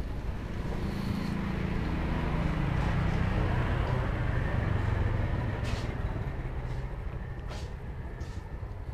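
A road vehicle driving past: its engine hum grows louder over the first few seconds, then fades as its pitch drops. A few light clicks are heard in the second half.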